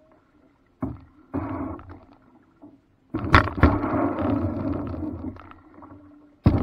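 Water splashing and sloshing around a small paddled boat in irregular bursts, with two sharp knocks a little over three seconds in.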